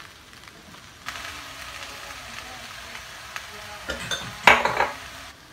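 A spoon stirring and scraping spiced potato-and-pea samosa stuffing in a pan on the stove, over a light sizzle. There are a few louder scrapes against the pan about four seconds in.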